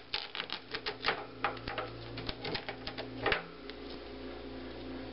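Hamster working at the wire bars of her cage, trying to get out: a quick, irregular run of sharp clicks and rattles that stops about three and a half seconds in.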